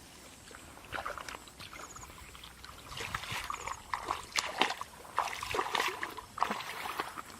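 Water splashing and sloshing in irregular bursts, busier and louder in the middle and latter part.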